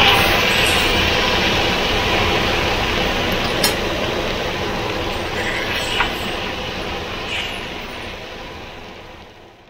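Flat rice noodles and sauce sizzling steadily in a hot wok as they are stirred, with two light taps of the utensil against the pan. The sizzle fades out toward the end.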